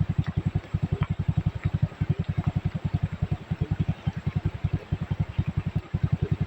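Small engine running steadily, with a low, even thudding about eight times a second.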